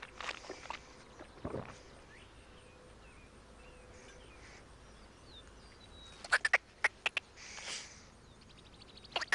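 A man swallowing a mouthful and then smacking his lips and clicking his tongue several times as he tastes it, with faint bird chirps behind.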